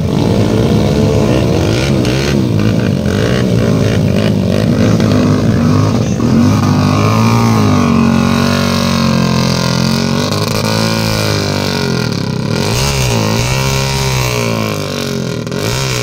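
Several dirt bike engines revving hard under load in deep mud, their pitch rising and falling again and again as the riders work the throttle to get through.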